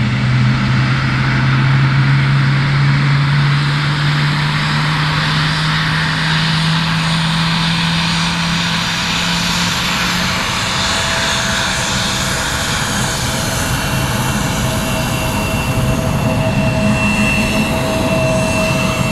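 Jet engines of a taxiing Boeing 777F (GE90 turbofans) running with a steady roar and a low hum that rises slightly and fades after about ten seconds. From about two-thirds of the way in, a steady high whistle joins it from the CF34 engines of a following CRJ.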